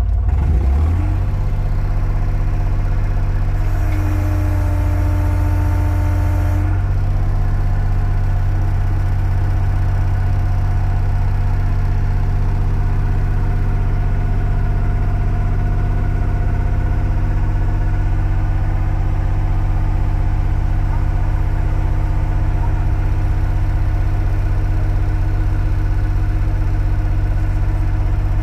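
An excavator's diesel engine running steadily, heard from inside the cab. About four seconds in, a higher whine and hiss rise over the engine for about three seconds.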